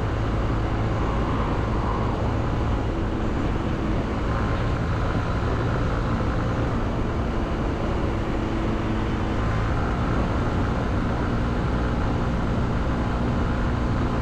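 Honda CB125F's single-cylinder 125cc engine running under way at a steady road speed, over a constant rush of noise. Its note shifts a little a couple of times.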